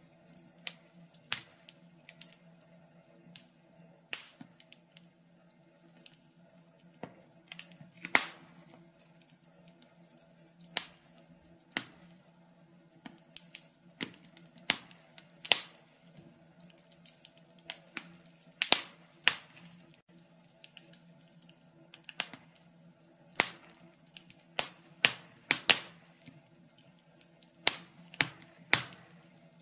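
Logs burning in a fireplace, crackling with irregular sharp pops, some single and some in quick clusters, over a faint steady low hum.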